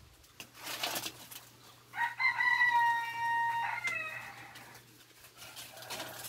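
A rooster crowing once: one call of about two seconds held on a single pitch, breaking downward at the end. Leaves and branches rustle briefly about a second in and again near the end.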